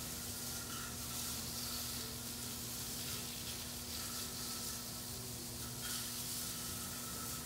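Steady hiss over a low, constant hum, with no distinct events.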